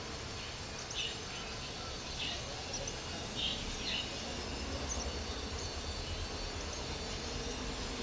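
Purple sunbird chicks begging at the nest while being fed: four short high cheeps in the first four seconds, then a few fainter chirps, over a steady low hiss and hum.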